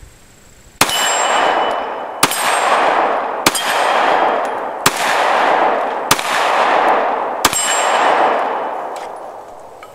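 Six shots from a Glock 43 9mm pistol, fired about one every second and a half. Each shot is a sharp crack with a brief high ring, followed by about a second of rolling echo that fades away.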